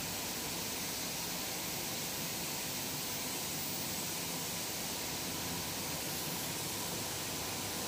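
Steady, even hiss of running factory machinery beside a gas-fired biscuit tunnel oven, with a faint hum beneath and no change in level.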